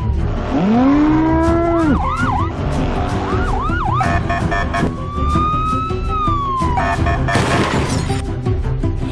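Police car siren switching between modes: a slow rising-and-falling wail, a low wind-up, quick up-and-down whoops and a fast pulsing tone. Background music with a steady beat runs underneath, and a short rush of noise comes near the end.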